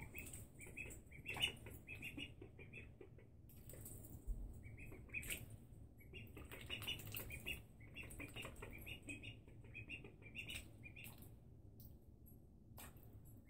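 Two ducklings peeping in quick runs of short, high chirps while paddling and splashing in shallow bathtub water, with a sharper splash about a second and a half in.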